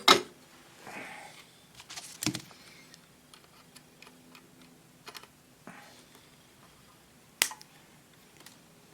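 Scattered clicks and taps of tools and components handled on a workbench while a replacement filter capacitor is fitted. There is a sharp knock right at the start, a few lighter taps over the next few seconds and a crisp click about seven seconds in.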